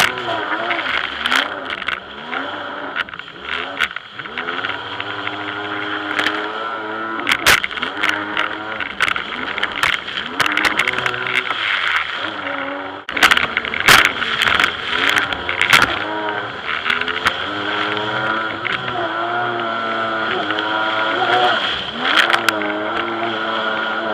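Jet ski engine running at speed, its pitch rising and falling over and over with the throttle, with frequent sharp knocks through it.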